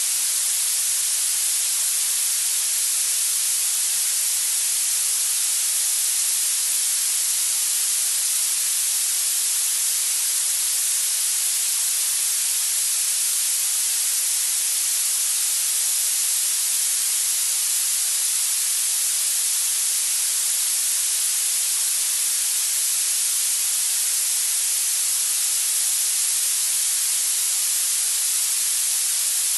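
Steady, unchanging hiss of generated masking noise for tinnitus sound therapy, weighted toward the high end with little bass.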